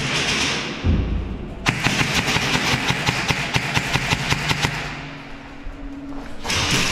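Airsoft rifle firing a fast string of about fifteen shots, roughly five a second, over about three seconds, with a dull thump just before the string starts.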